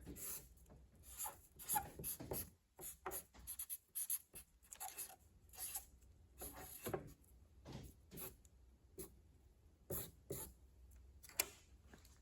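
Faint, irregular light scrapes and clicks, like small objects being handled or rubbed.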